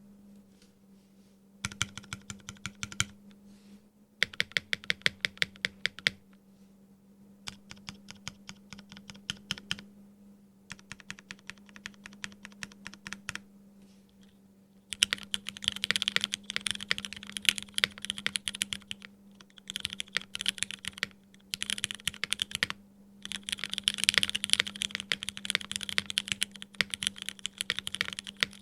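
Typing on a Bakeneko65 mechanical keyboard with lubed and filmed Hyperglide MX Black linear switches and GMK keycaps, hand broken-in and still a bit scratchy. Four short runs of rapid keystrokes give way, about halfway through, to faster continuous typing. A faint steady hum sits underneath.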